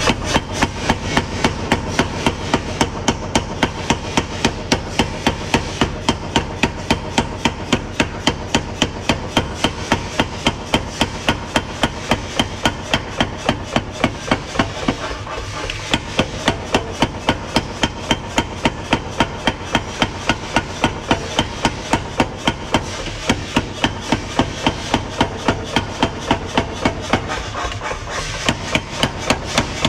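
Power hammer forging a red-hot steel cleaver blank: a rapid, even run of heavy blows, about three a second, with a couple of brief pauses, over a steady hum.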